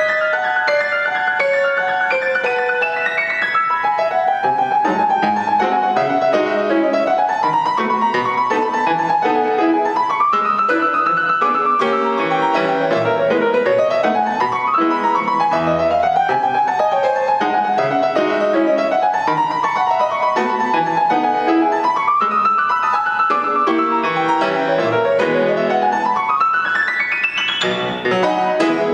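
Solo piano playing a fast classical passage of rippling figures that rise and fall about every two seconds, ending with a quick upward run near the end.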